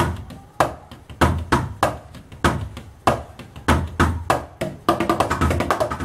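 Wooden drumsticks striking the rubber pads of a practice pad drum kit, playing a gospel-chops fill: separate hits spaced about half a second apart, then a fast run of strokes from about five seconds in.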